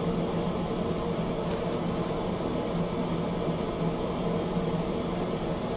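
Propane hand torch burning steadily into a small gas kiln: a constant hiss with a low hum underneath.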